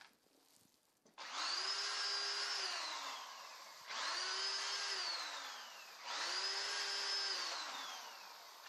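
Cordless drill run three times into plywood, each time spinning up to a steady whine and then winding down in pitch as the trigger is let go.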